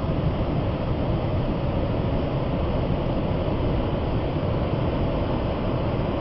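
Large waterfall's falling water: a loud, steady rush, heaviest in the low range.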